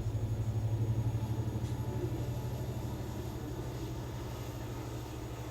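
Steady low electrical hum with a fast, even flutter, from the 48-volt rectifier and PWM controller driving a halogen heater; it eases off slightly toward the end.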